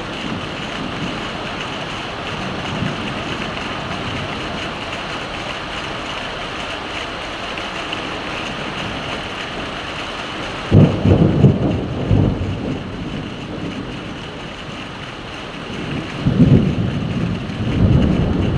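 Steady heavy rain hissing, with a sudden loud rumble of thunder a little past halfway and two more low rumbles near the end.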